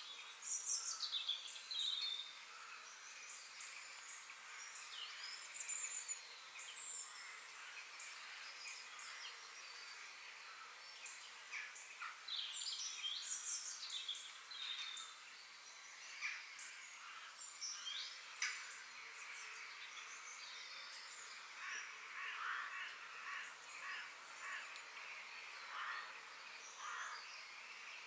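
Forest ambience: several songbirds chirping and calling with quick rising and falling notes, over a steady faint high hiss. Between about 22 and 27 seconds a run of short, rapid calls is added.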